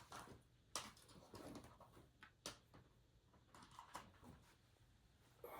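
Near silence broken by a few faint, sharp clicks and taps of handling.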